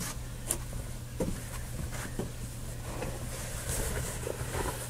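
Clothing and small items being handled: faint scattered rustles and taps over a steady low hum.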